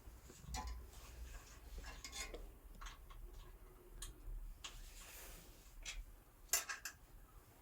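Scattered small metallic clicks and taps as a hand tool works on a bandsaw's lower blade guides, loosening and setting them against the blade, with one sharper click near the end.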